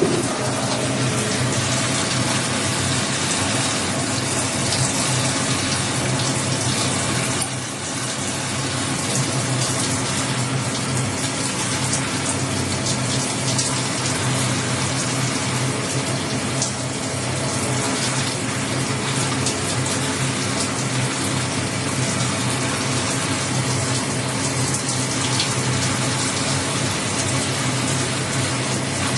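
Emco Turn 220 CNC lathe running steadily: a constant motor hum under an even rushing hiss, dipping briefly about a quarter of the way in.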